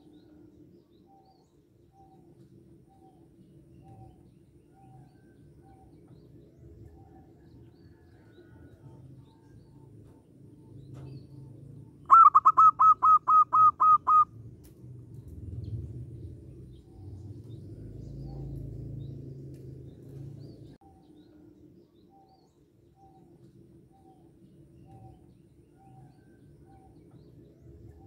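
A bird gives a loud burst of about ten quick, identical, pitched notes lasting about two seconds, around the middle. Faint short chirps repeat at a slow, even pace before and after it, over a low steady hum.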